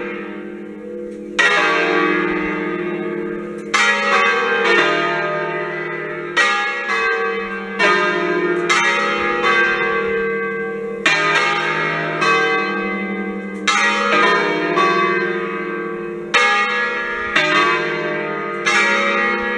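Five Achille Mazzola church bells of 1951, tuned in a slightly flat E-flat, swinging in a full peal (distesa). Their clappers strike at uneven intervals, every second or two, and each stroke rings on and overlaps the next.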